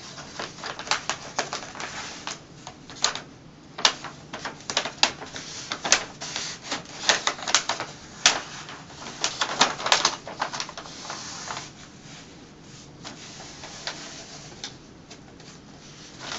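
Paper backing of a peel-and-stick wall mural crackling and snapping as it is peeled away and the sheet is handled: a quick, irregular run of sharp crackles, thinning out to occasional ones about eleven seconds in.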